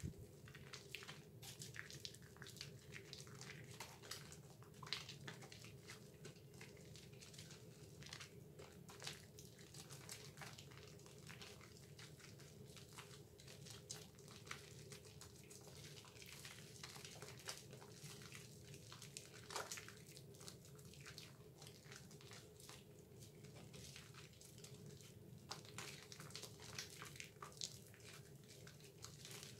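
Wet, soapy hands squeezing and rubbing a bar of Dove soap into thick lather, making faint, irregular squishing and crackling of foam. A steady low hum runs underneath.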